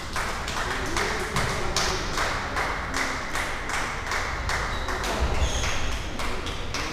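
Badminton rackets striking shuttlecocks on several courts at once, a quick, irregular string of sharp hits, about two or three a second, echoing in a large sports hall, with a brief high squeak or two near the end.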